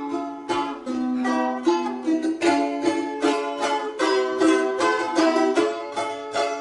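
Three balalaikas played together: quick, rhythmic strummed chords with a plucked melody line over them.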